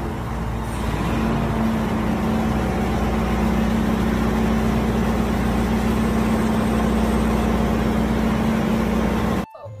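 Caterpillar 302 mini excavator's small diesel engine running steadily while it digs, with a steady hum joining in about a second in. The sound cuts off suddenly near the end.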